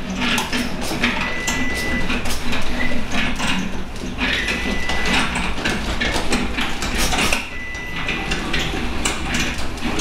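A 12-volt DC battery-backup garage door opener runs on its batteries, pulling a sectional garage door closed with a steady rumble and a continuous rattle and clatter of the door and track. The door moves slower than usual because the opener is running on battery. A short, high steady tone sounds several times.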